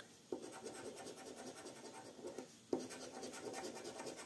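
A coin scraping the silver coating off a FDJ Millionnaire scratch-off lottery ticket in quick, repeated strokes. It pauses briefly twice, and each pause ends in a sharper scrape.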